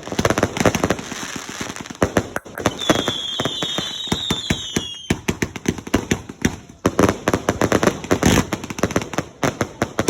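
Consumer fireworks going off in rapid succession: a dense stream of sharp bangs and crackling, with several whistles sounding together from about three to five seconds in.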